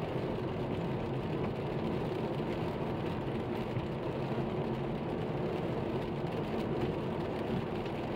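Steady cabin noise of a car driving on a wet road: the engine and tyres running evenly.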